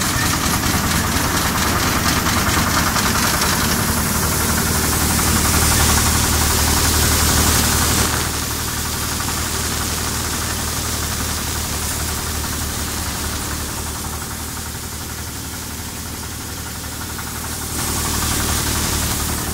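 Engine-driven paddy thresher running: a steady engine note under a higher rushing noise, which grows louder for a few seconds, drops suddenly about eight seconds in, and swells again near the end.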